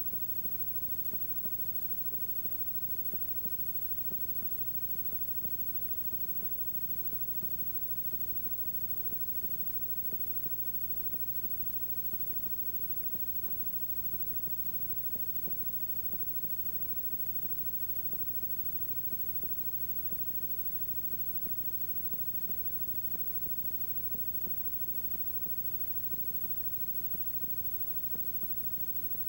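Steady electrical hum with hiss and faint crackle: the noise of a tape copy's audio track, with no sound of the game itself.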